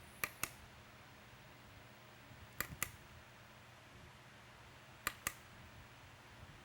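Small push button on the back of a Whelen Slim-Miser LED dash light clicking as it is pressed and released, three times about two and a half seconds apart, each press stepping to the next flash pattern.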